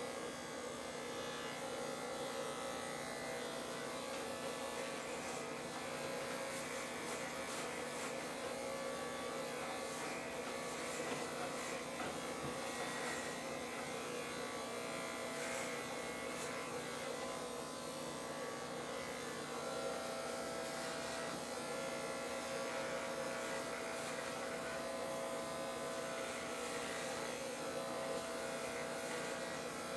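Corded electric hair clippers running with a steady buzz as they are drawn over a close-cropped scalp.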